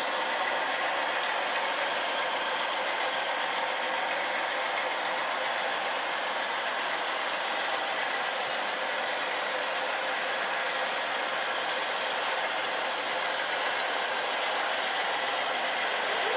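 HO scale model diesel locomotives running at a steady speed, their LokSound sound decoders playing a diesel engine sound through small on-board speakers, thin with almost no bass. The sound holds steady, with no horn or change in engine notch.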